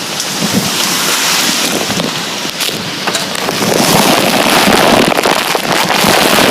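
Strong storm wind blowing hard and buffeting the microphone, getting louder about four seconds in.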